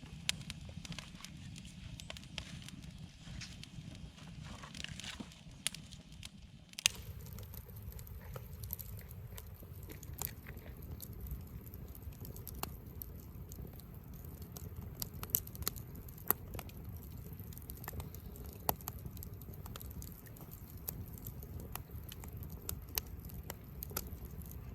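Campfire of damp wood crackling, with sharp pops scattered irregularly over a low steady rumble.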